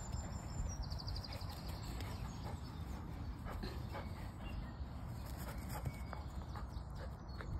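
A black Labrador moving about on grass close by, with scattered soft steps and clicks over a steady low rumble of wind on the microphone. There is a brief rapid ticking about a second in.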